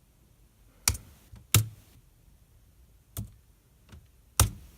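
A few sharp, irregularly spaced clicks from a person working a computer, with quiet between them.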